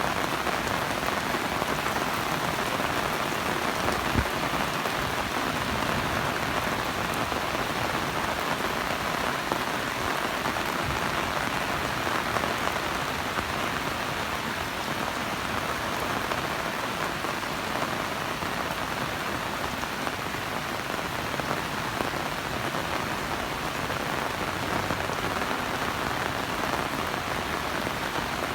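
Heavy rain falling steadily, a dense, even hiss of drops on surfaces, with a single sharp knock about four seconds in.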